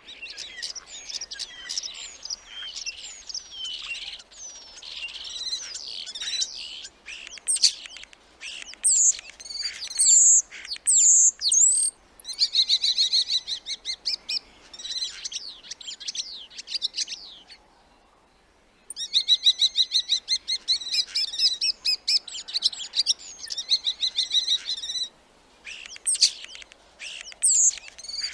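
Starling singing a varied, jumbled song of chirps and sliding whistles, broken by long runs of rapid rattling trills. There is a pause of about a second roughly two-thirds of the way through.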